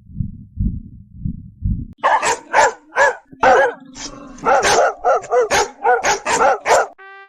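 Heartbeat sound effect of low, evenly repeated thumps, cut off about two seconds in by a dog barking repeatedly, about a dozen barks over five seconds.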